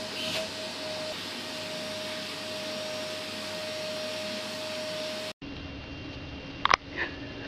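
A vacuum cleaner running steadily with a constant whine, its hose nozzle held against a cat's fur. The vacuum stops abruptly about five seconds in, leaving a quieter low hum with two sharp clicks near the end.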